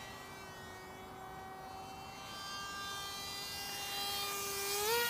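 Single electric motor and propeller of a Spirit 600 mini flying wing flying overhead: a steady high whine with many overtones, getting louder over the last three seconds, its pitch gliding up just before the end.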